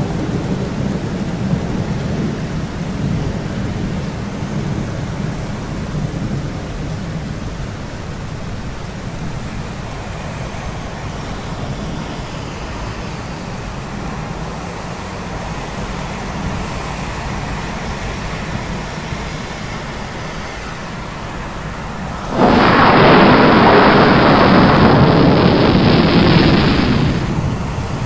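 Thunderstorm sound effect: steady rain with low thunder rumbling. About 22 seconds in, a much louder, harsher stretch of storm noise starts suddenly and cuts off abruptly about five seconds later.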